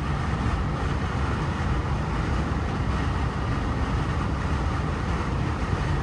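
Steady road noise inside a moving car's cabin at highway speed: a low rumble of tyres and engine with a hiss of wind.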